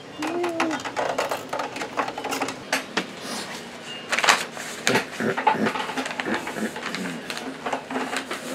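Sheets of paper being handled and rustled, with irregular clicks and light knocks of things being moved about.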